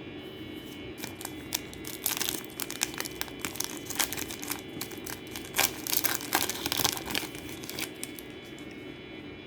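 A trading card pack's wrapper torn open and crinkled in the hands: a run of sharp crackles and rustles for several seconds.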